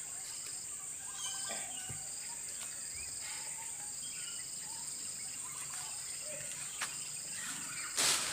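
Outdoor ambience dominated by insects: a steady high drone, with short trills repeating every second or so, a few bird chirps and a few faint knocks. Near the end, cloth brushes against the microphone in a brief loud rustle.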